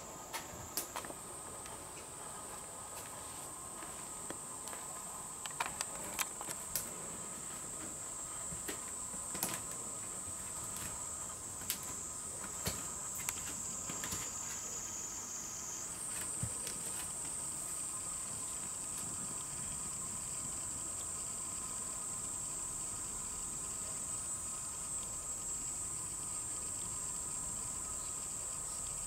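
A steady, high-pitched chorus of insects trilling without a break, its pitch stepping up slightly about halfway through, with scattered light clicks and taps in the first half.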